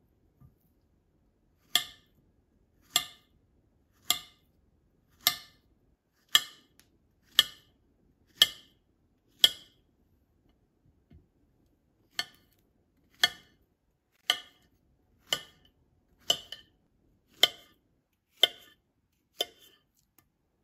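Sharp, slightly ringing taps from a kitchen utensil striking a hard surface, about one a second, in two runs of about eight with a short pause between.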